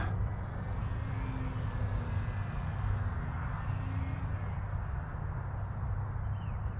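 Small electric motor and propeller of a GWS Zero foam RC plane running at part throttle in flight, a faint drone that swells a little in the first half over a steady low hum.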